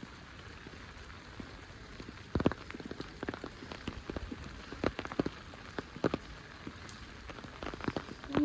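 Rain falling steadily. From about two seconds in, loud, irregular drops tap close by.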